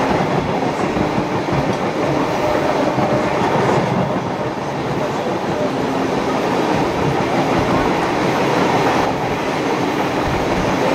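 Passenger carriage of a steam-hauled heritage train running along the track: steady, loud running noise of the wheels on the rails, heard from inside the carriage.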